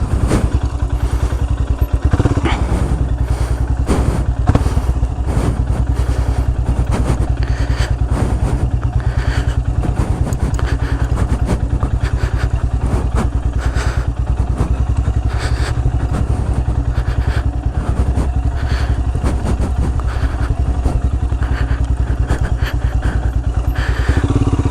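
Royal Enfield Himalayan's 411 cc single-cylinder engine running steadily at low revs as the motorcycle rides slowly over rough off-road ground, with occasional knocks and clatter from the bike.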